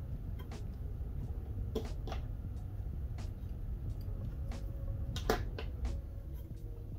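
Scattered small clicks and taps of plastic parts and cable being handled as a laptop's replacement DC charge port and its cable are fitted into the chassis, the sharpest click about five seconds in. A steady low hum runs underneath.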